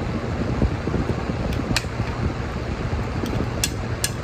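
Metal spoon and fork clinking and scraping against a plate: a few sharp clinks, most of them in the second half. Under them runs a steady fan-like background hum.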